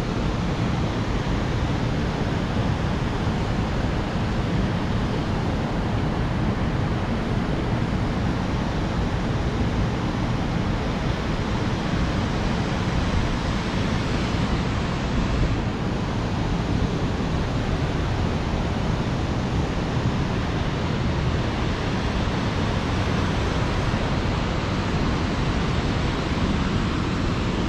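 A steady, even rushing noise, heaviest in the low end, with no breaks or separate events.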